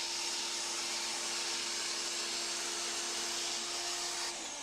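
Homdox 1800 W electric pressure washer running with its soap attachment: a steady motor hum under the hiss of the low-pressure soap spray, stopping near the end when the trigger is let off.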